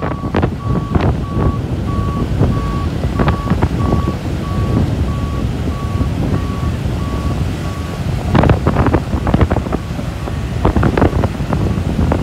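Reversing alarm on a tracked lifeboat launch vehicle beeping in a steady, rapid series over the vehicle's low engine rumble, with wind buffeting the microphone. The beeps grow faint about eight seconds in.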